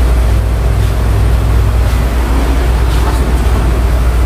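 Nissan X-Trail T30 engine running steadily with a constant low drone.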